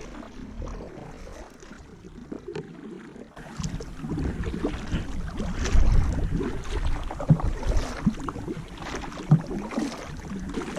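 Kayak being paddled: irregular paddle splashes and knocks, getting louder about three and a half seconds in.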